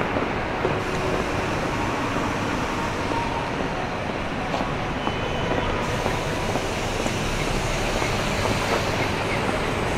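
Steady city street noise at night, made up of a continuous rumble of passing traffic.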